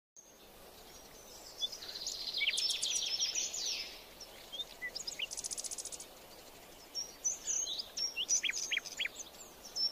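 Several songbirds calling together: short high chirps and whistles, busiest about two to four seconds in, with a fast, even trill of about a dozen notes near the middle.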